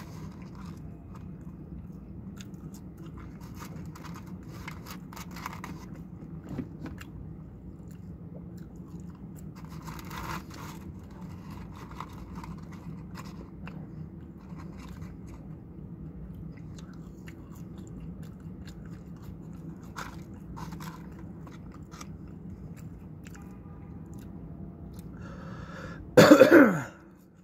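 A man chewing fries and handling a paper fries carton, with small crunches and clicks over a steady low hum. About a second before the end, one short loud cough, falling in pitch.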